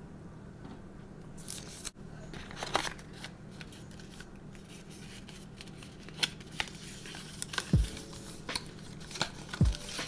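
Paper and thin cardboard packaging being handled: a card instruction sleeve slid out of a cardboard tray and opened, with scattered rustles, scrapes and light clicks, and a few dull bumps in the second half.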